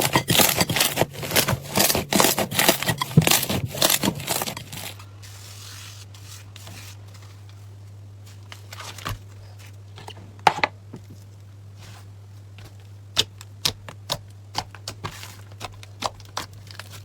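Slime being squeezed and worked by hand, with dense crackling clicks and snaps for the first few seconds. It then switches abruptly to a quieter stretch: scattered soft clicks and pops over a low steady hum.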